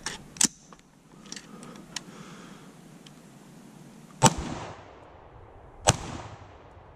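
Two rifle shots from a 7.62 AR-style rifle about a second and a half apart, each trailing off in a long echo. A few sharp clicks sound within the first half second.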